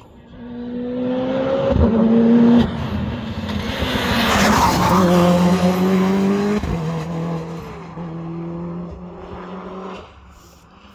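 Hillclimb race car accelerating hard out of a hairpin and past, its engine revving up and dropping in pitch at each upshift. The engine note fades as the car climbs away up the road near the end.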